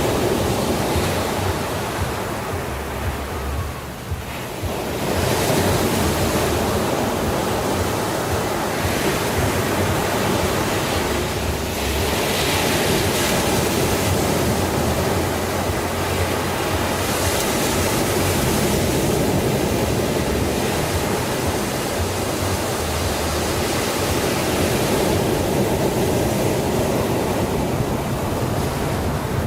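Sea surf washing in continuously, swelling and easing as waves break; a lull a few seconds in, then a fresh surge.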